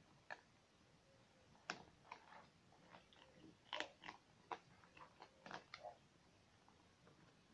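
Several domestic cats eating from a plastic bowl: irregular crunches and soft chewing clicks, loudest around two and four seconds in.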